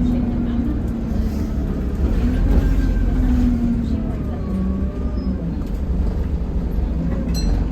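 Alexander Dennis Enviro200 bus running, a heavy low rumble with a droning hum that shifts up and down in pitch in steps.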